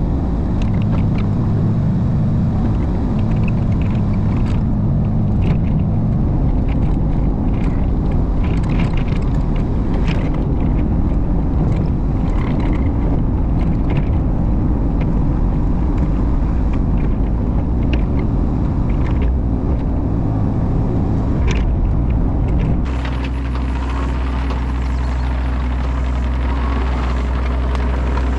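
Engine of a compact earthmoving machine running steadily under work, with scattered knocks and cracks from brush and debris being handled. About 23 seconds in, the engine note changes abruptly to a steadier, lower hum.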